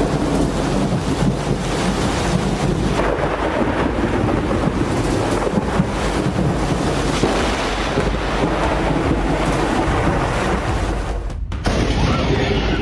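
Thunderstorm recording: steady, rumbling thunder with wind buffeting the microphone and rain. A brief drop-out near the end, then a different storm recording with similar noise.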